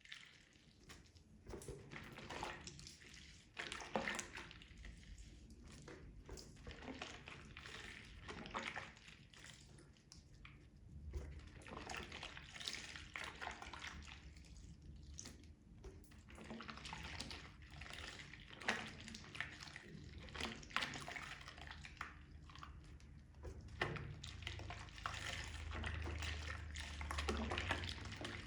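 Wet makeup sponge being squeezed and squished in water, giving irregular squelches and drips.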